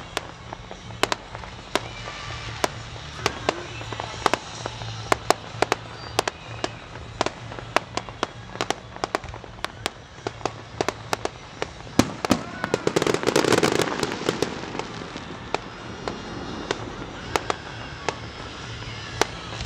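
Fireworks display: a fast, irregular run of sharp bangs and pops, several a second, with a louder noisy swell about thirteen seconds in.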